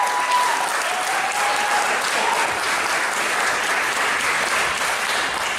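Audience applauding steadily, with a few held high calls or whistles over the clapping in the first two seconds.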